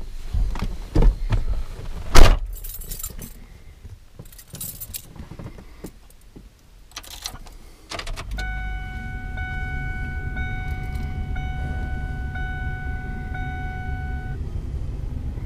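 Keys jangling with a few knocks, then about eight seconds in the 7.3-litre Power Stroke V8 turbo-diesel starts running and idles steadily, likely the usual check run after an oil change. Over the idle a dashboard warning chime sounds about once a second for some six seconds, then stops.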